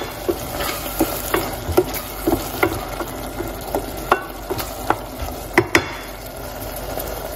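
Wooden spoon stirring diced tomato and onion frying in oil in a stainless steel pot, knocking against the pot's sides over a steady sizzle. The knocks stop about six seconds in, leaving the sizzle.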